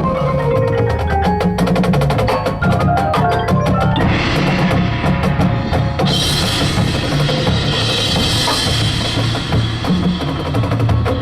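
High school drumline playing: snare and bass drums with rapid, dense strokes, joined by pitched percussion. From about six seconds in the sound fills out into a bright sustained wash over steady drum beats.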